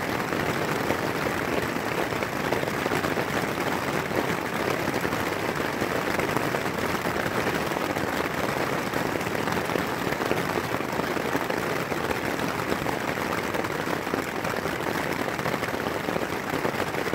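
Steady crackling noise, even and unchanging, with no single sound standing out.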